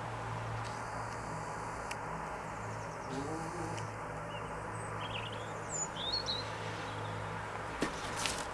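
Outdoor background with a steady low hum, a few small-bird chirps about six seconds in, then a short flurry of wingbeats near the end as a cock pheasant flaps its wings.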